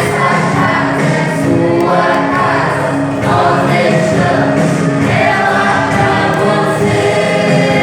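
A church praise group singing a gospel worship song in chorus, several voices together with long held notes.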